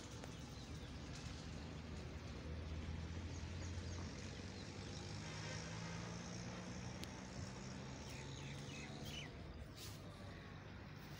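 Faint outdoor background: a low, steady engine hum, with a few short bird chirps about eight to nine seconds in.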